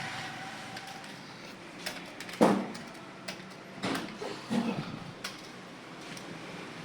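Computer keyboard being typed on at a steady pace, irregular key clicks several a second, with a louder knock about two and a half seconds in.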